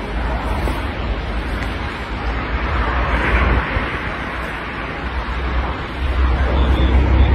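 Wind rushing and buffeting over a phone's microphone: a steady noisy rush with low rumbling that swells about three seconds in and grows heavier near the end.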